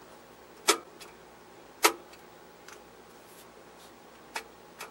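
Sharp clicks of a Tektronix 465 oscilloscope's front-panel switches and knobs being worked: two loud clicks about a second apart in the first two seconds, then a few fainter ones.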